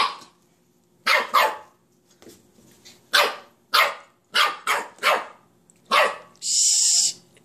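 Scottish Terrier puppy barking at its own reflection in a mirror, taking it for another puppy: about nine short, sharp barks, some in quick pairs. A brief hiss comes near the end.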